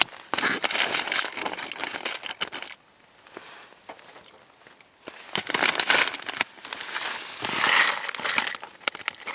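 Plastic food packaging crinkling as it is handled, in three spells with a quieter pause in the middle.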